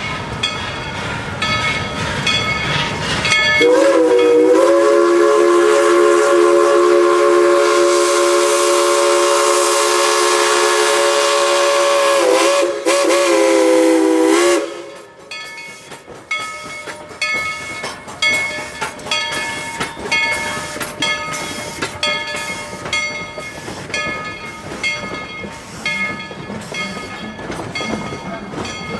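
Tweetsie Railroad No. 190, a narrow-gauge steam locomotive, blows one long chord on its steam whistle for about eleven seconds, faltering briefly just before it ends. Before and after the whistle the train runs with a rhythmic clatter of about two beats a second.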